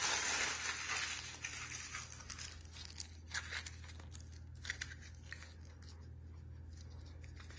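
Aluminium foil being crumpled by hand into a ball: dense crinkling, loudest at first, thinning out into scattered sharp crackles.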